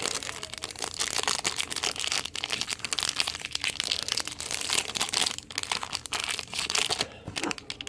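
Wrapper of a football trading-card pack crinkling and tearing as it is opened and handled: a dense run of crackles that eases off near the end.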